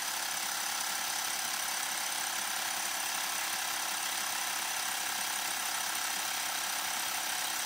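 Small portable electric air compressor running steadily, supplying a model single-cylinder twin-valve steam engine that runs on its compressed air. The result is an even mechanical hum.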